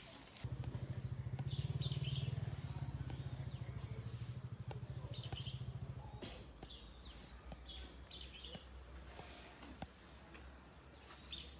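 Outdoor rural ambience: birds chirping now and then over a faint steady high hiss, with a low drone that is loudest for the first few seconds and fades out about six seconds in.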